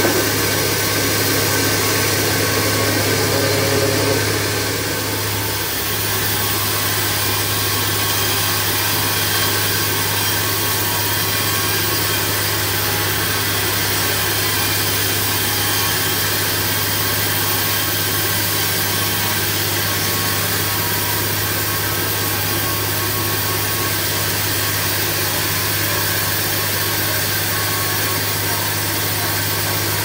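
Band sawmill running with its band blade sawing lengthwise through a log: a steady mechanical drone with a strong low hum, dropping slightly in level about five seconds in.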